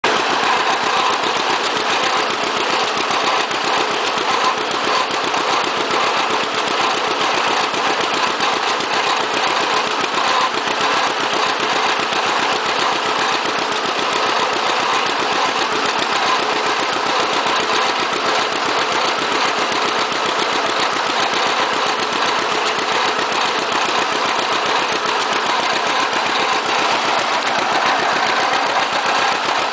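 John Deere 60 tractor's two-cylinder engine running steadily while driving along, a continuous even run of exhaust pulses.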